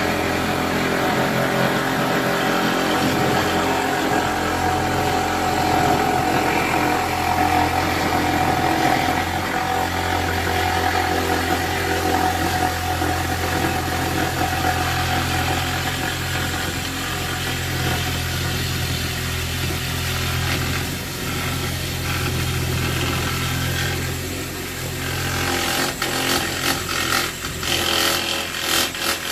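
Reciprocating saw running steadily as its blade cuts along the edge of a wooden dresser top, trimming an excess piece flush. Near the end the steady run breaks into a fast rattling chatter.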